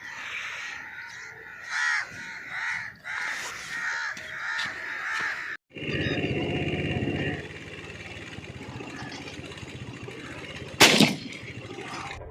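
Birds calling repeatedly with short cawing calls for the first half. After a break, a single loud shotgun shot goes off near the end.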